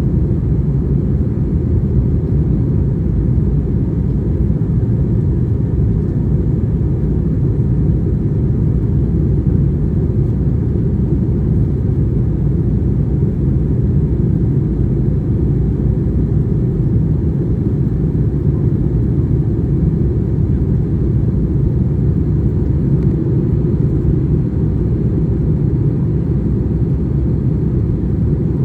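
Steady low rumble of an Airbus A321-231's IAE V2500 engines and airflow, heard inside the passenger cabin.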